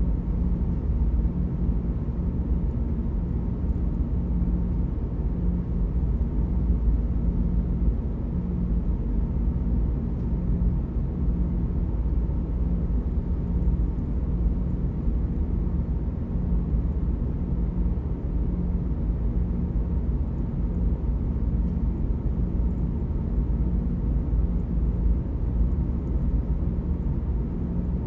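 Steady low rumble of a car ferry's engines carried through the hull into a cabin, with a humming tone that pulses gently.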